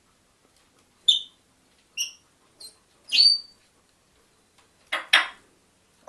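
African grey parrot calling: four short, high whistled notes about a second apart, then two quick harsh, hissy squawks near the end.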